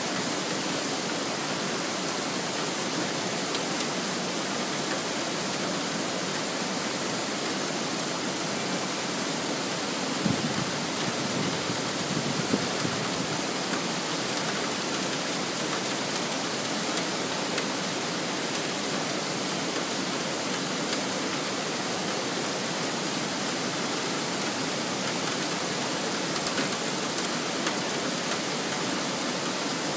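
Heavy thunderstorm rain pouring steadily, an even hiss, with two brief thuds about ten and twelve seconds in.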